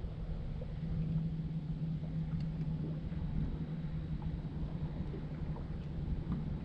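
Steady low electric hum, typical of a bass boat's trolling motor, fading away after about four seconds, over low wind rumble on the microphone.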